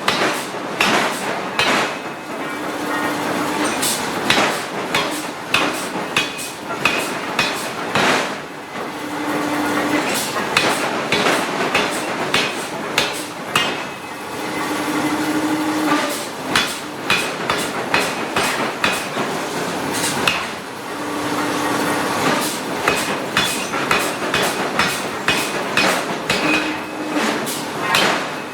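Hydraulic forging hammer striking hot steel in runs of sharp blows, several a second, with short pauses between runs. A brief steady hum recurs about every six seconds.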